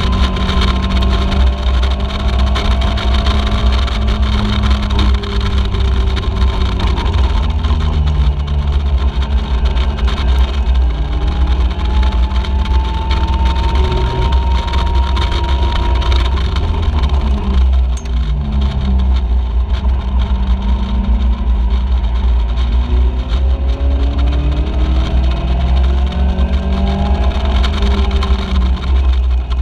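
Caterham Seven race car's four-cylinder engine heard from the open cockpit, pulling hard through the gears. Its pitch climbs and drops with each gear change and falls away under braking about 18 seconds in, over a heavy low wind rumble on the microphone.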